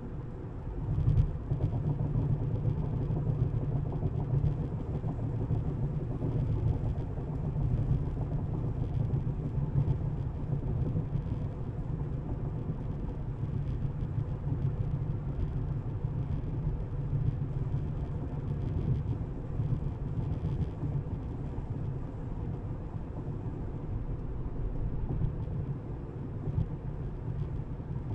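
Tesla electric car driving, with a steady low rumble of road and tyre noise and no engine note.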